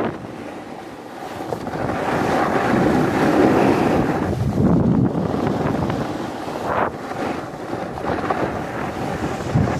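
Snowboard sliding and carving over packed snow, a rushing scrape that rises and falls in level, with wind buffeting the microphone.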